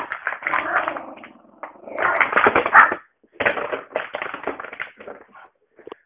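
A border terrier growling in three rough bursts, each a second or two long with short gaps between, through a low-quality old phone microphone.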